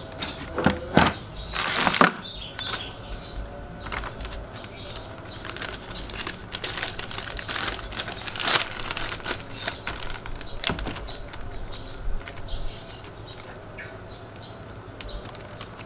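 Scattered clicks, knocks and rustling, as of objects being handled, loudest in the first two seconds.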